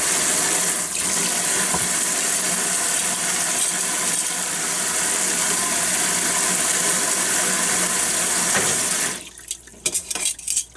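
Kitchen faucet's shower spray running steadily onto a stainless steel tray and wire rack in a sink, shut off about nine seconds in, followed by a few drips.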